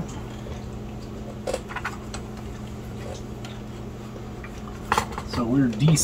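A few light clicks and taps of tools being handled on a workbench over a steady low hum, with a sharper click near the end.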